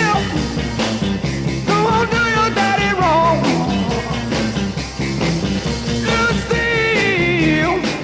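Rock and roll band playing: steady bass and rhythm with drums, and a wavering melodic lead line above.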